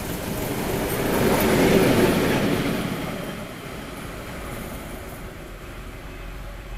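ST44 (Soviet-built M62) diesel locomotive passing close by and pulling away: its two-stroke V12 diesel engine and wheels on the rails grow loud to a peak about two seconds in, then fade as it recedes.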